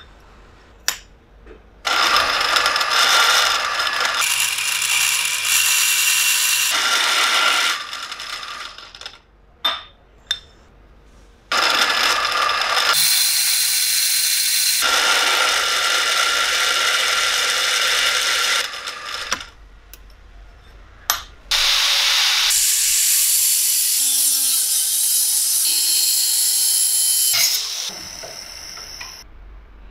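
Power tool running in three long bursts of several seconds each, with clicks and knocks in the pauses between them.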